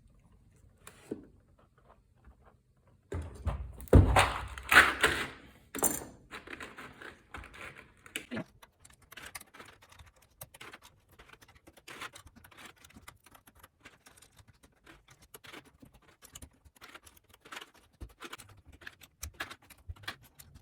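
Plastic XDA-profile keycaps clattering and clicking as they are handled and pressed one by one onto a mechanical keyboard's switches. A louder clatter comes about four seconds in, followed by a long run of small, quick clicks.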